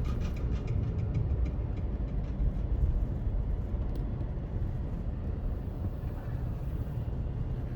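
Car road noise heard inside the cabin while driving: a steady low rumble of tyres and engine.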